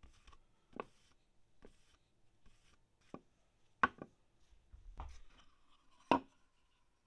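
About six sharp wooden knocks and taps, spread unevenly over a few seconds, as a stained wooden scale base is handled and set against the workbench. The two loudest come a little past the middle and near the end, with a faint rubbing sound between them.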